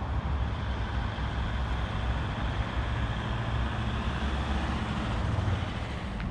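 Steady rumble of road traffic, heaviest in the low end, with no single event standing out.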